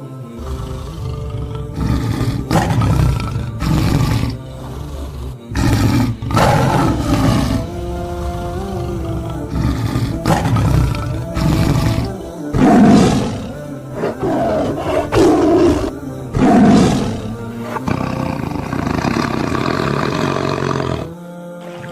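A series of loud calls from a large animal, over background music.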